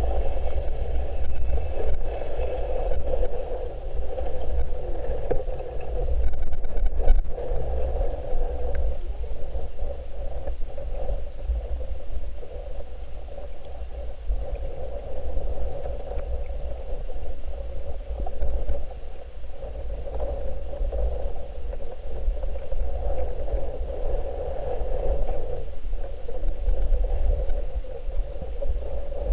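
Creek water moving past a submerged camera, heard underwater as a steady low rumble with a rushing band above it, and a brief cluster of clicks about seven seconds in.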